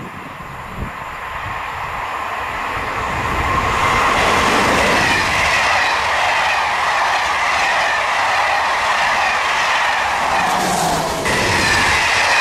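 Passenger train of Corail coaches approaching and passing at speed. The rush of wheels on rail grows over the first four seconds, then stays loud and steady as the coaches go by, with a brief dip and jump near the end.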